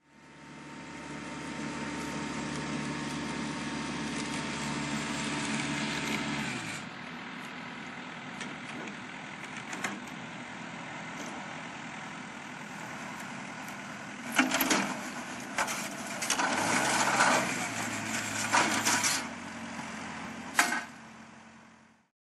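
Tractor engine running steadily, dropping to a quieter run about seven seconds in, with a series of loud knocks and clatters in the later part.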